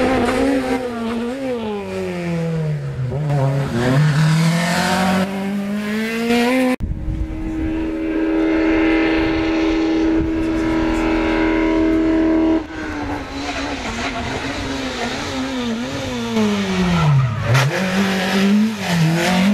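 Rally car engines revving hard on a tarmac stage, the pitch climbing and dropping with gear changes and braking. In the middle an engine note holds at one steady pitch for about six seconds. Near the end a car drops revs sharply for a corner and then accelerates away.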